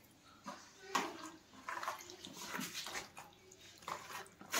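Hand squishing and kneading raw chicken pieces in a yogurt, ginger-garlic and oil marinade in a plastic tub: faint, irregular wet squelches with a few light knocks against the container.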